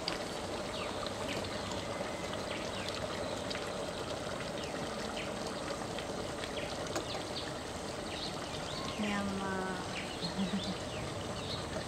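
Matoke stew being ladled from a steel cooking pot onto a plate: liquid pouring with small splashes and clinks over a steady hiss. A brief murmur of voice comes about nine seconds in.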